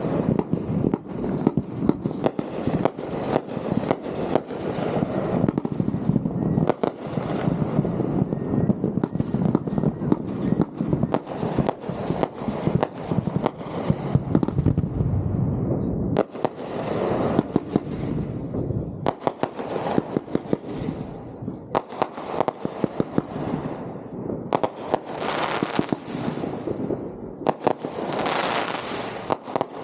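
Fireworks display in full swing: a dense, continuous run of sharp shots and bursts from launching and breaking shells and cakes, with brighter crackling bursts near the end.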